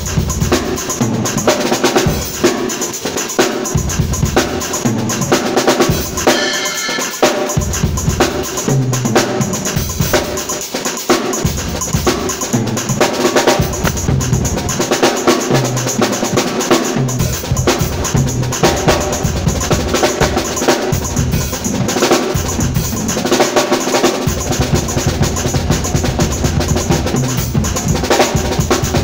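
Drum kit played continuously in a groove, with dense snare and cymbal strikes over kick drum and low sustained notes.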